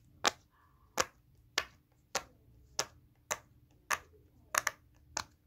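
Silicone pop-it fidget toy having its bubbles pressed one by one: about ten sharp pops at roughly two a second, with a quick double pop near the end.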